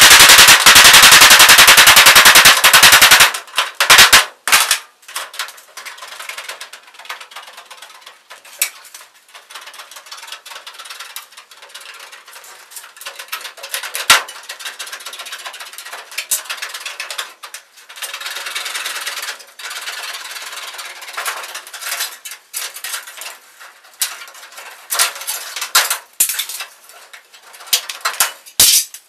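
Hammer striking rapidly on a sheet-metal duct to punch a starter hole, sped up so the blows run together like machine-gun fire for about the first three seconds. Then aviation snips cutting an opening out of the duct's sheet metal: a fast, irregular run of sharp snip clicks and metal scraping.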